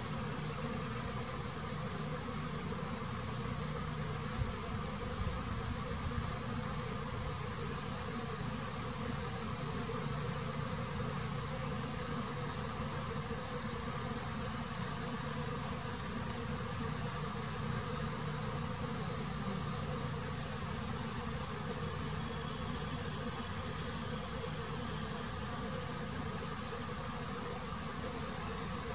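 Honeybees buzzing steadily in a continuous drone, with an unbroken high-pitched insect trill over it.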